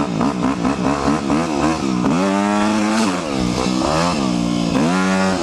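Four-stroke dirt bike engine revving under the rider's throttle: quick blips, about four a second, for the first two seconds, then two longer pulls where the pitch rises, holds and drops back.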